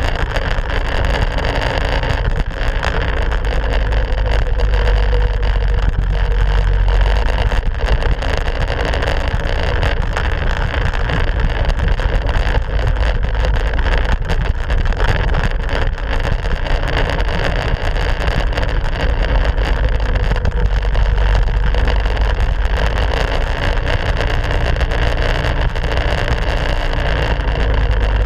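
Minibike's small engine running steadily while riding, its pitch wavering a little as the throttle varies, with heavy wind rumble on the bike-mounted camera's microphone.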